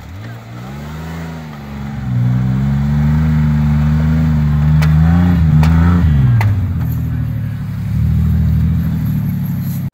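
Isuzu Trooper's engine revving hard as its tyres spin in deep slush, struggling for traction on a snowy hill. The revs climb over the first two seconds and hold high, then drop about six seconds in to a lower steady running. A few sharp clicks come around the middle.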